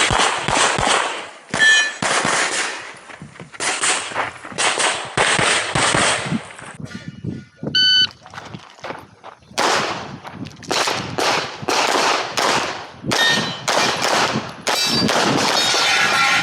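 Pistol gunfire in rapid strings of shots, with steel targets ringing now and then. There is a short lull in the middle, then fast shooting resumes.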